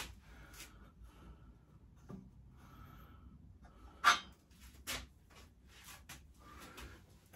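Light clicks and clinks of small metal parts being handled while fitting a pit bike's swing arm, with a sharp clink about four seconds in and another a second later.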